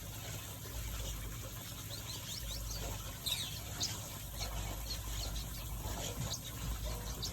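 Small finches in an aviary giving short, high chirps, scattered and overlapping, busiest about three to four seconds in.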